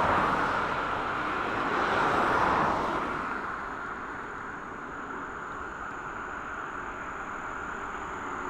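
Steady jet aircraft noise, a rushing hum with a faint high whine over it. It is louder for the first few seconds, then settles lower and even.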